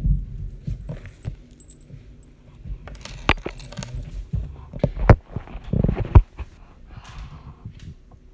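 Handling noise from a phone being moved about: irregular sharp clicks and knocks, with low rubbing thumps against the microphone, the loudest about five to six seconds in.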